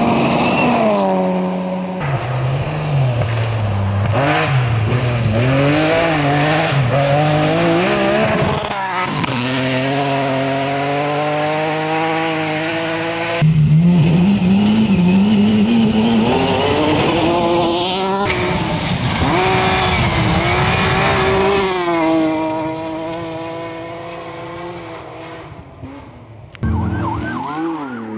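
Rally cars at full throttle, their engines repeatedly revving up and dropping back through gear changes and lifts. Several separate passes are cut one after another, with abrupt changes between them.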